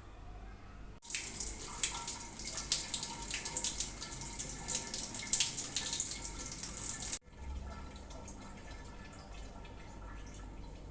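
Water running from a tap and splashing, a hiss full of small splashes that starts about a second in and cuts off abruptly after about six seconds, followed by faint dripping.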